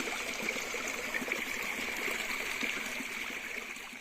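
Stream water running steadily, an even rushing sound.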